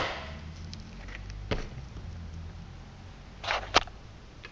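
Handling knocks from a Workzone 16V cordless drill with its battery just fitted: a single knock about a second and a half in, then a short scrape and a sharper knock near the end as the drill is set down on its battery on a wooden surface.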